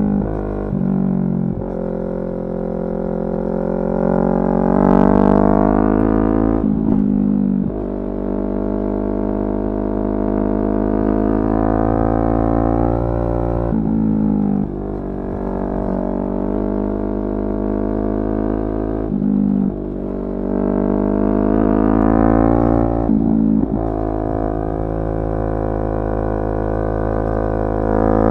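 Yamaha R3's parallel-twin engine under way, its pitch climbing steadily and then dropping sharply at each of about five gear changes.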